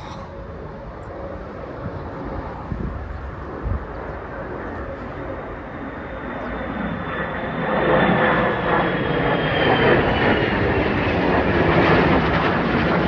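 F-35A fighter jet flying past, its single F135 turbofan growing steadily louder and loudest over the last five seconds. A high whine slowly drops in pitch as the jet passes.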